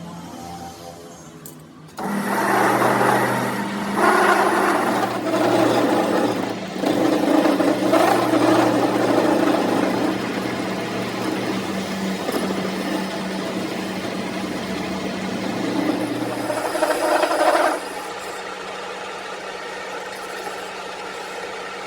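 A motor-driven power tool or machine working metal. A loud, rough noise of uneven strength starts about two seconds in and stops abruptly near the end, over a steady motor hum that keeps going.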